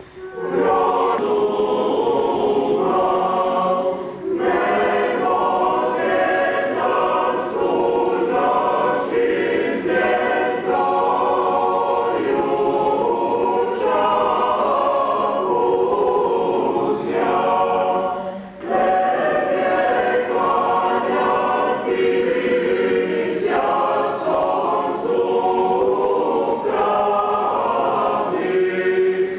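Serbian Orthodox church choir singing liturgical chant without instruments, in sustained phrases with two short breaks, about four seconds in and about eighteen seconds in.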